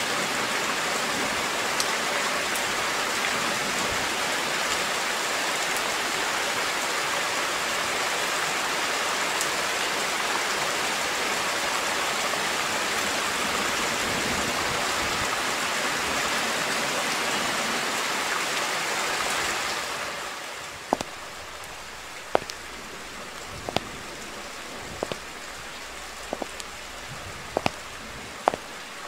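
Steady heavy rain, a dense even hiss, which eases to lighter rain about twenty seconds in. Over the lighter rain come sharp taps every second or so.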